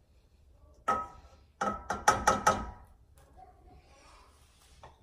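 A sharp knock about a second in, then a quick run of about six sharp clicks with a ringing tone, from kitchen items being handled off-camera.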